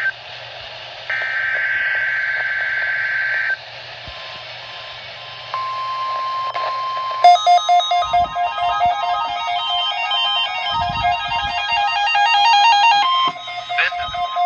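NOAA Weather Radio Required Weekly Test signalling. About a second in comes a SAME digital header burst, a harsh two-tone data screech lasting about two and a half seconds. After a short gap the steady 1050 Hz warning alarm tone starts and holds until near the end. About halfway through it is joined by a fast electronic melody of beeps, an alarm jingle.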